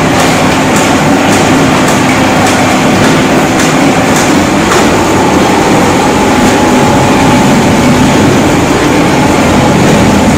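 A 5-foot spindleless rotary veneer peeling lathe, driven by twin 7.5 kW motors, running while it peels a rubberwood log: a loud, steady mechanical clatter. A regular knock comes about twice a second through the first half.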